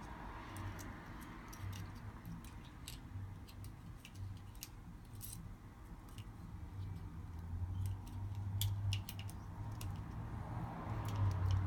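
Scattered light clicks and taps of small smartphone parts and tools being handled, over a low hum that grows louder near the end.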